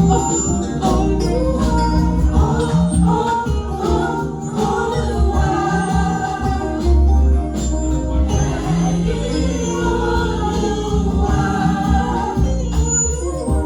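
A choir singing a gospel anthem over instrumental accompaniment with a heavy sustained bass line.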